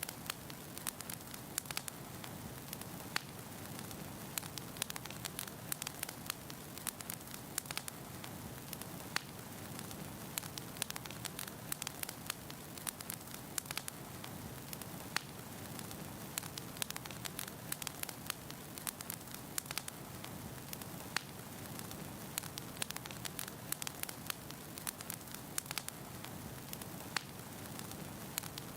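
Wood fire burning in a fireplace: a steady low hiss with frequent sharp, irregular crackles and pops from the burning logs.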